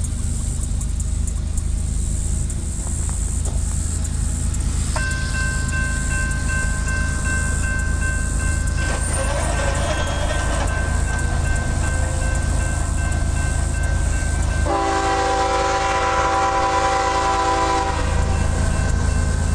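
Horn of a CSX ES44AH diesel locomotive sounding two long chord blasts as it approaches a grade crossing, about five seconds in and again about fifteen seconds in, the second louder. A steady low rumble runs underneath.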